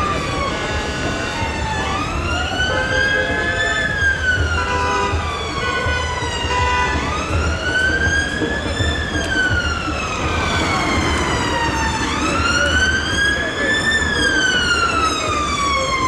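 Emergency vehicle siren on a slow wail, gliding up for about two seconds and down for about three, through about three full cycles. A low, steady engine rumble runs underneath.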